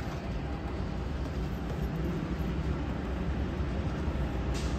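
Steady city street noise: a low, even rumble with no distinct events.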